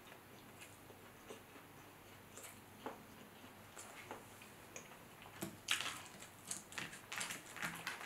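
Close-miked chewing of a mouthful of food: faint, sparse mouth clicks at first, then a quick run of sharp, wet mouth clicks and squishes in the last few seconds.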